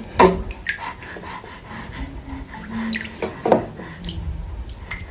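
Water splashing and dripping in a baby's bath, with a few sharp splashes.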